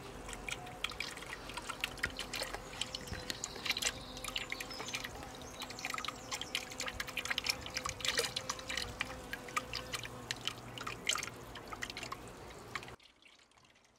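A thin stream of water falling from an outlet pipe into a small garden pond, splashing and dripping irregularly on the surface. It cuts off suddenly near the end.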